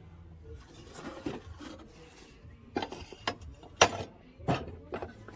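Handling noise: rubbing and scraping, then a run of about five sharp knocks and clacks of hard objects, the loudest nearly four seconds in.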